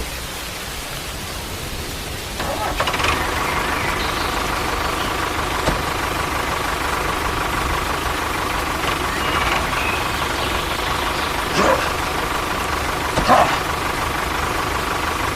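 A DIY mini tractor's small motor switches on about two and a half seconds in and runs with a steady whine. A few short squeaky sounds break in, the loudest near the end.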